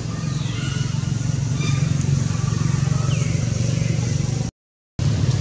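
Steady low drone of a motor vehicle engine running, with a few faint high chirps over it. The sound cuts out for about half a second near the end.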